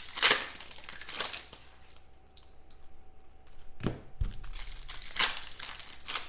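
Foil trading-card pack wrappers crinkling and tearing as card packs are opened by hand, in several short bursts, with a brief low thump about four seconds in.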